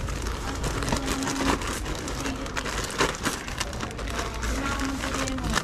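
Crinkling and rustling of plastic packaging being handled, a dense run of small crackles and clicks.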